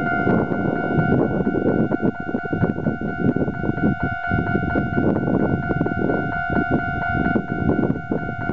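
Electronic level-crossing warning bell ringing in rapid repeated strokes on a steady two-note tone, over the heavy rumble and wheel clatter of a Keisei electric train passing through the crossing.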